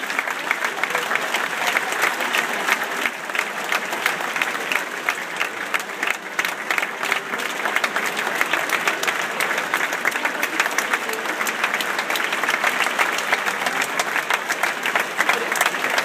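Large theatre audience applauding steadily at a ballet curtain call: dense clapping from many hands, even and sustained.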